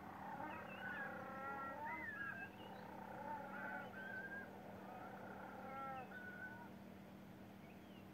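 Penguins calling: several overlapping, wavering calls for six or seven seconds, then dying away, over a steady low hum.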